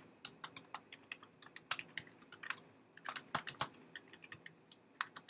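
Typing on a computer keyboard: a run of quick, irregular keystrokes with short pauses, thinning out near the end.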